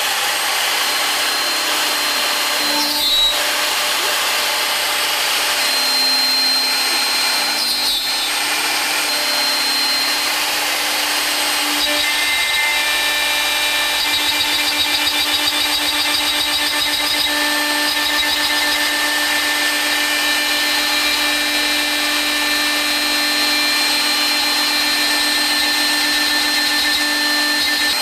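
Router spindle of a home-built CNC machine running steadily at high speed while its bit drills and mills into a compact laminate panel. The sound changes briefly about 3 and 8 seconds in, and its pitch shifts around 12 seconds in.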